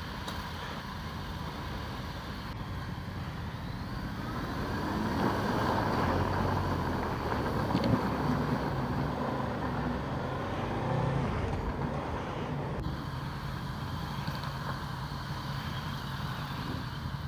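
Motorcycle engines running at idle, with one revving up and growing louder from about four seconds in before settling back to a steady drone.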